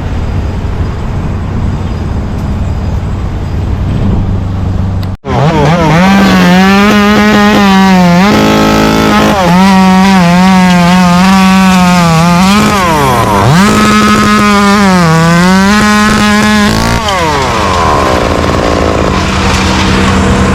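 A steady machine hum, then after a sudden break a two-stroke chainsaw running at high revs. Its pitch sags and recovers several times as it bogs into cuts, then holds steady near the end.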